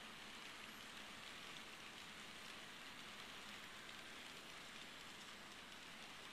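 Märklin H0 model freight train rolling along metal track: a faint, steady rattling hiss of the wagons' wheels on the rails.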